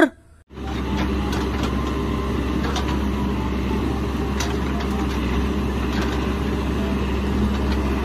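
Caterpillar 416F backhoe loader's diesel engine running steadily as the machine digs, with a few faint clicks. It starts about half a second in.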